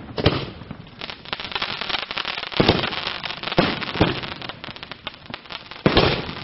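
Fireworks display: aerial shells bursting with several loud bangs, over a steady crackling of many smaller reports.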